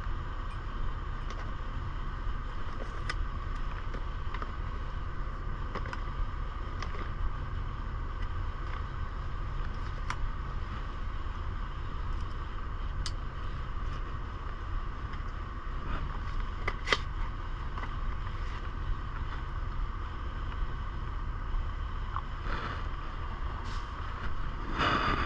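Steady low hum of a truck's engine heard from inside the cab, with scattered small clicks and rustles as a headset box is opened and handled, the clearest click about two-thirds of the way through.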